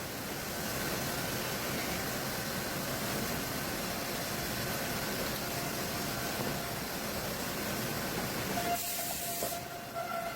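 Sawmill machinery running steadily: the head saw and the log carriage working a Douglas fir log. About nine seconds in there is a brief sharper hiss.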